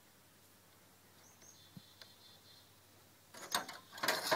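Faint bird chirps, then two short bursts of handling noise near the end as tools are picked up off the work surface.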